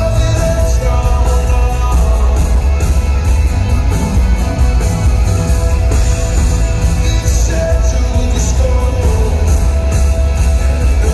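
Live band music: a male singer singing at the microphone over his own acoustic guitar, with keyboards and a heavy bass, recorded from among the audience.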